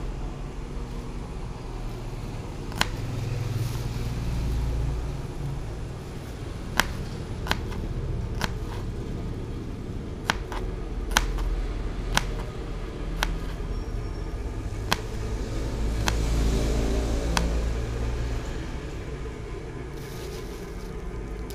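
A kitchen knife clicking against a plastic cutting board while shallots are sliced: about a dozen short, sharp taps, roughly a second apart through the middle, over a steady low rumble.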